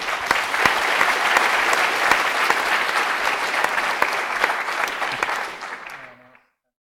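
Audience applauding, many people clapping together; the applause fades away about six seconds in.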